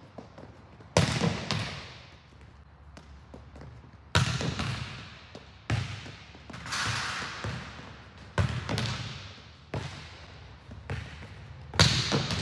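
Volleyball spiking practice: a hand smacking the ball and the ball slamming onto the sport-tile court. There are five loud, sharp smacks about every three seconds, several followed quickly by a second, softer one, each echoing around a large warehouse gym.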